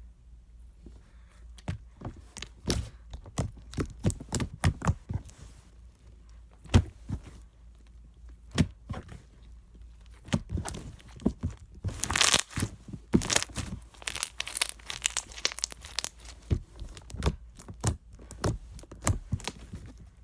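Thick slime being squeezed and stretched by hand: a run of sticky pops and crackles, thickest and loudest about twelve seconds in.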